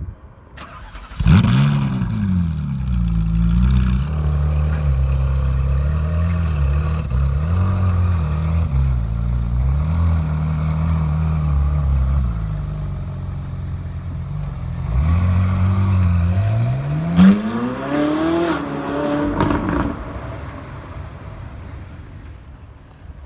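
Ferrari 458 Italia's V8 starting up about a second in, the revs flaring then settling into an idle that rises and falls a little. Later the revs climb twice, with a brief sharp loud spike near the top, and the engine sound then fades away.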